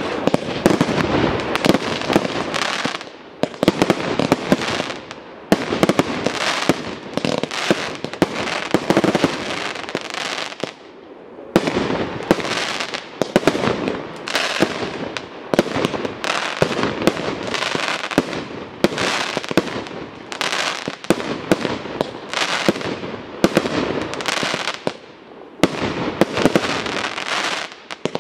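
Aerial fireworks display: a rapid barrage of pops and bangs from shells and crackling stars. It comes in several dense bouts broken by brief lulls.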